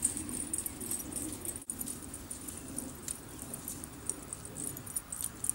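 Faint outdoor ambience: a low rustle under a steady high hiss, with a brief dropout about one and a half seconds in.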